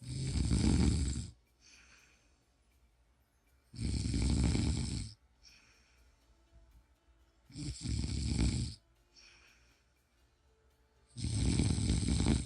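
A person snoring: four loud snores, evenly spaced about three and a half to four seconds apart and each lasting just over a second, with softer breaths between them.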